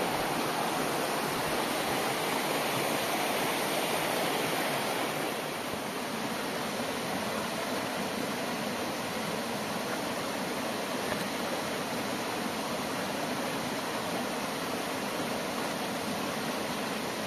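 Fast, shallow mountain stream rushing over rock in a steady roar of water, a little softer after about five seconds.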